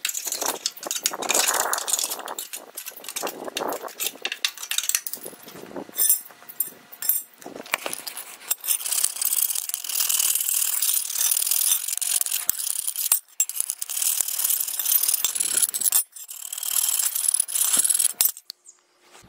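Screwdriver scraping caked grass off the underside of a Husqvarna walk-behind mower deck and off its steel blades: scratchy metal-on-metal scraping with many quick clicks and taps.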